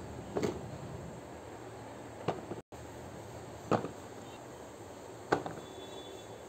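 Silicone pop-it fidget toys being put into a plastic storage box: four short soft knocks a second or two apart as pieces are set down against the box.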